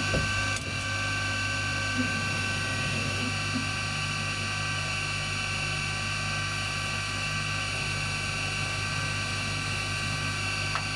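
Mini CNC lathe running, a steady motor hum and whine with several fixed pitches, turning bronze bushings. There is a short click about half a second in and another near the end.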